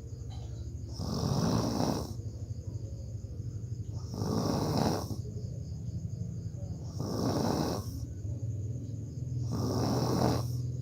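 A person snoring heavily: a low, rattling buzz that goes on almost without pause, broken about every three seconds by a louder, harsher breathy snore, four times.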